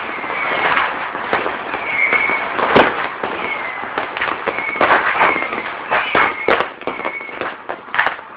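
New Year fireworks going off: a dense, irregular series of bangs and crackles, with short high whistles recurring throughout.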